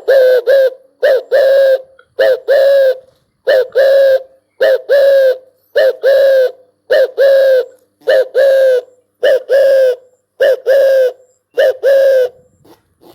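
Spotted dove cooing loudly and close by: a rapid, even series of about eleven two-part coos, each a short note followed by a longer one, roughly one call every 1.2 seconds.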